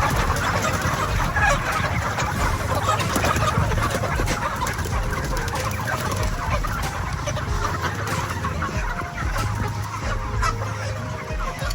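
A large flock of chickens clucking continuously, many birds calling over one another, with a low steady hum underneath.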